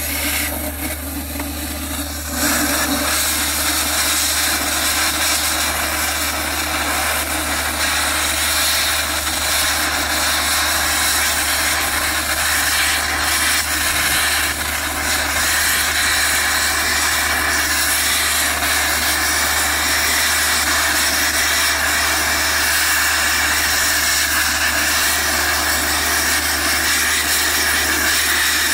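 Thermal lance burning into a thick steel shaft: a loud, steady hiss of the oxygen jet and burning metal. It steps up in strength about two seconds in, then holds level.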